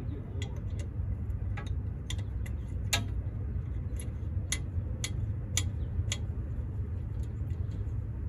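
Irregular sharp metallic clicks, about a dozen, from a wrench working on the rear drum-brake backing plate. They sit over a steady low hum.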